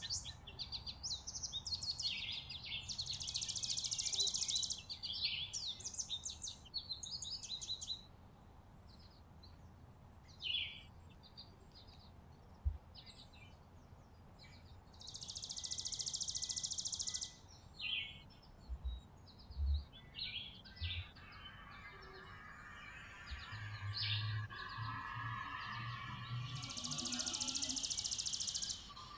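Chickadees calling: quick runs of short, high chips and notes. Three times, near the start, in the middle and near the end, comes a harsher buzzy stretch of about two seconds, typical of the "dee-dee-dee" part of the call, with a sparser spell of scattered notes in between.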